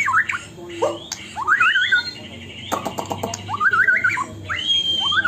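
White-rumped shama singing: phrases of quick rising and falling whistled notes, with a harsh rattling stretch about three seconds in.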